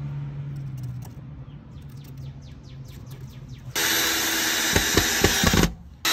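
A cordless drill-driver driving a screw through a steel door hinge into a wooden board. It starts suddenly about halfway through, runs steadily for about two seconds, stops briefly, then starts again just before the end.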